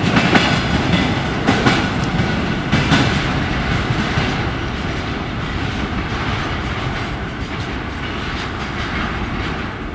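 Container train's wagon wheels clattering rhythmically over the rail joints as the train rolls past, with a few sharp knocks in the first three seconds, then a steadier rumble that slowly gets quieter.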